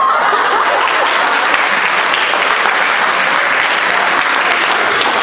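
A crowd applauding, a dense, steady clapping.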